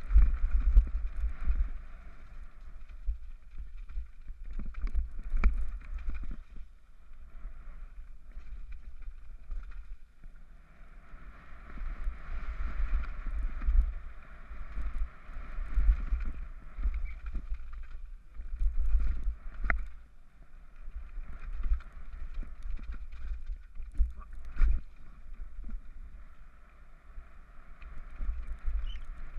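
Wind buffeting and rumble on a helmet-mounted action camera as a Scott Gambler downhill mountain bike runs at speed over rock and gravel, with tyre noise and several sharp knocks and rattles from the bike over the rough sections.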